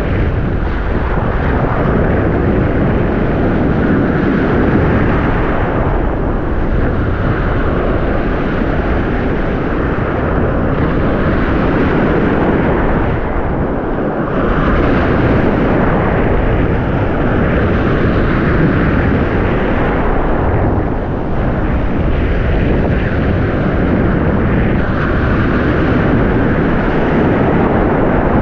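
Loud, steady roar of wind and surf on an open shoreline, with wind buffeting the microphone and the level swelling a little every few seconds.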